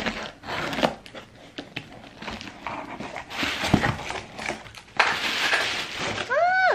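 A box cutter scratches through the packing tape along a cardboard box's seam, followed by the flaps opening and a plastic bag rustling and crinkling, loudest about five seconds in. Just before the end comes a short pitched sound that rises and then falls.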